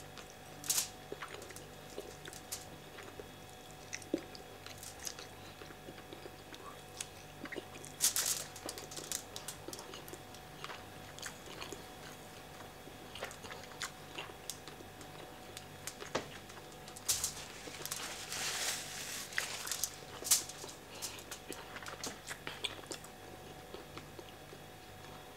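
A person chewing a mouthful of jollof rice and fried fish close to the microphone, with many short wet mouth clicks. The chewing noise gets louder briefly about 8 seconds in and again for a few seconds around 17 to 20 seconds.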